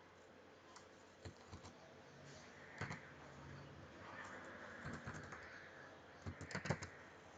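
Faint, scattered clicks and taps of a stylus writing on a drawing tablet, with a quick cluster of clicks about six and a half seconds in.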